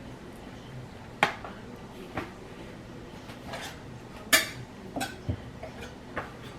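Kitchen utensils and dishes clinking and knocking: about six separate sharp clinks, the loudest about four seconds in.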